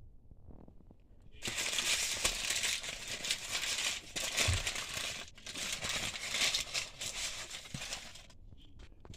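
Paper food packaging crinkling and crumpling as it is handled. It starts about a second and a half in, breaks off briefly halfway through, and stops near the end.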